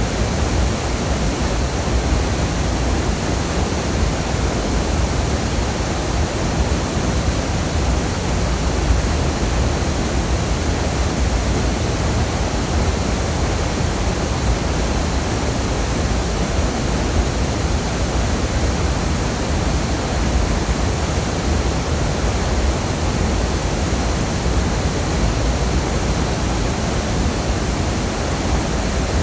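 Waterfall: a steady, unbroken rush of falling water, heaviest in the low end.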